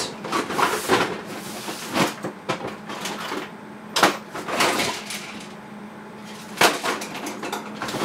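Hands working electrical tape around a wire: crackling, rustling tape noise and sharp clicks in short spells every second or two, over a faint steady hum.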